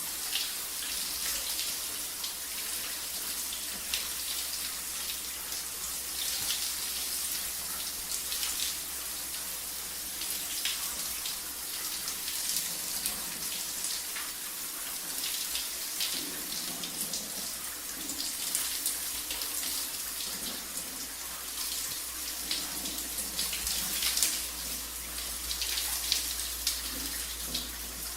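Shower running: water spraying and splashing steadily, with many small spatters.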